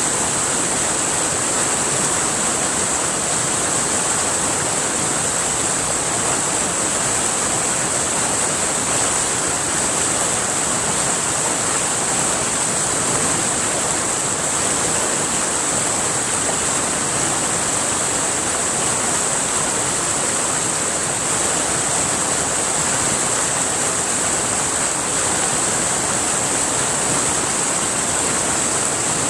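River water rushing steadily, with a steady high-pitched hiss on top.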